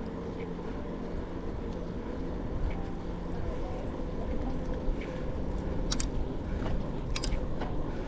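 Wind on the microphone and the steady rumble of a bicycle rolling along a trail, with two sharp clicks about six and seven seconds in.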